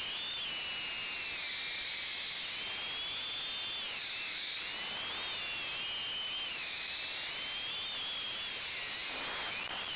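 Ducted drone's electric motors and propellers whining at high pitch over a steady hiss, the pitch wandering up and down with throttle.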